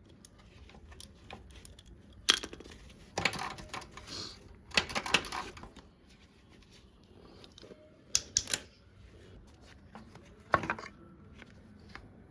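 Metal tools clicking and clinking against a motorcycle drive chain while its link pin is worked loose: short sharp taps in several small clusters, with quiet between them.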